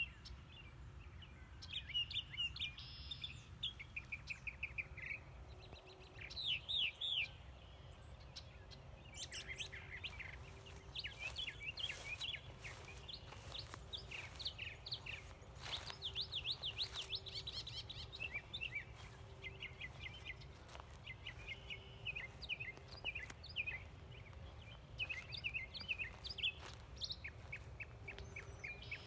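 Several wild birds chirping and trilling over one another, in quick runs of short repeated notes, above a steady low rumble. A few sharp clicks come in the middle.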